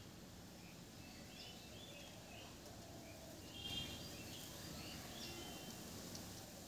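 Faint background ambience with small birds chirping repeatedly, a brief louder flurry of chirps just past the middle.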